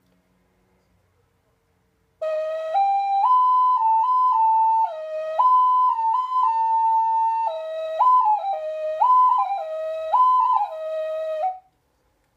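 A painted ceramic Mexican ocarina played, starting about two seconds in and stopping near the end: a simple tune that steps up and down between a handful of clear, pure notes in a narrow range, with some notes held for a second or more.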